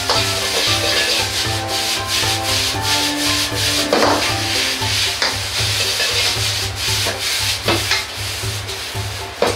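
Metal ladle scraping and pushing fried rice around a wok over high heat, with a continuous sizzle. Sharper scrapes come about four seconds in and again near the end, as the wok is tossed.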